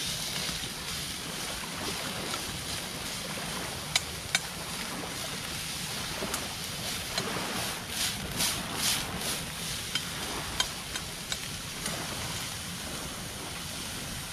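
Steady rushing noise of wind and moving water, with a couple of sharp clicks about four seconds in and a few lighter clicks later on.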